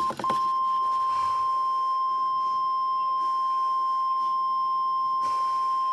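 NOAA Weather Radio warning alarm tone: one steady, loud, high beep near 1 kHz, held without change apart from a brief break just after the start. It is the attention signal that opens a broadcast weather warning.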